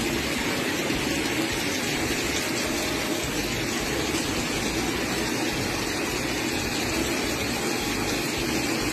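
Heavy hail and rain pelting wet pavement, a steady dense hiss with no let-up.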